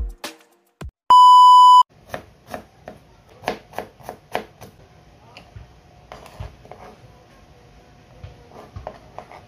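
A single electronic beep, one steady tone lasting under a second, then a knife chopping red onion on a plastic cutting board in a run of sharp knocks, about two to three a second, growing softer about halfway through.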